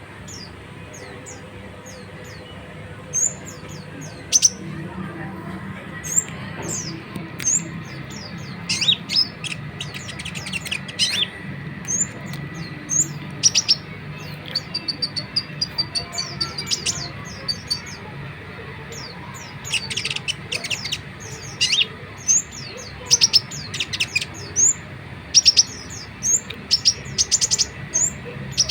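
Olive-backed sunbird (kolibri ninja) singing in full voice: a run of sharp, high chirps broken by fast chattering trills.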